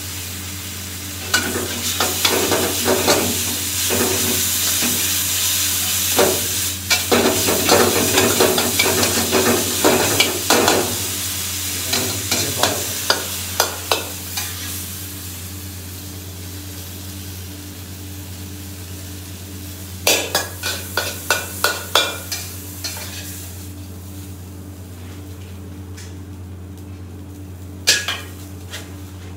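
Metal spatula clacking and scraping against a wok as minced pork and holy basil stir-fry and sizzle, dying away about halfway through. Later come a few short runs of metal utensil clinks, over a steady low hum.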